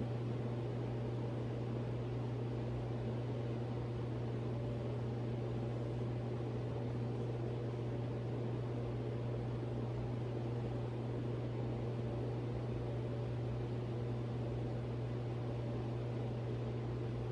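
SMC DC42 ceiling fan coasting through its spin-down after being switched off: a steady low hum over an even hiss that does not change.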